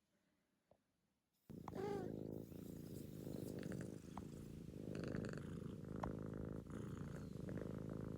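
Kitten purring: a steady, finely pulsing low rumble that starts suddenly about one and a half seconds in and carries on without a break.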